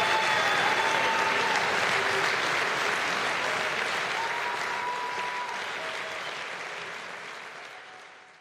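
Audience applauding, with a few calls over the clapping; the applause fades out gradually and dies away near the end.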